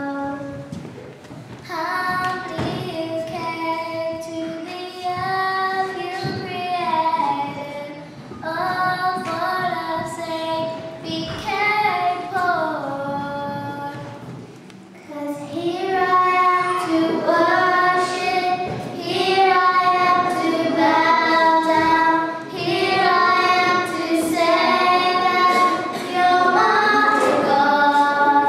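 Young girls singing a praise hymn into microphones, in phrases with short breaks between them, fuller and louder in the second half.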